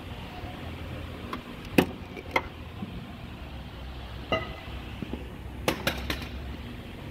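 A few sharp metallic clinks and knocks, some ringing briefly, as tools and metal parts knock together during a serpentine belt change. They come about six times at uneven intervals, a close pair near the start and a tight cluster of three past the middle.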